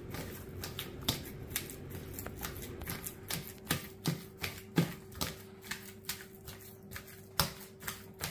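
Avocados being mashed with a utensil in a stainless steel mixing bowl: irregular taps and knocks of the utensil striking the metal bowl, a few a second.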